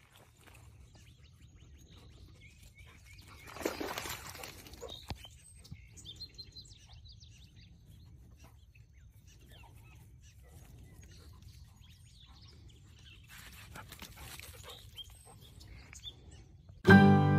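Quiet outdoor ambience with faint, scattered bird chirps and a brief rustling noise about four seconds in and again near the end. Banjo music comes in suddenly just before the end.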